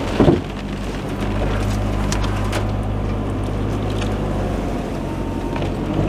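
Four-wheel-drive's engine running steadily at low speed, heard from inside the cab, with a few scattered cracks and scrapes of branches brushing against the vehicle.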